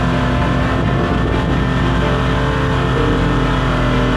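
Off-road truck engine running while driving, under background music of held chords that change about three seconds in.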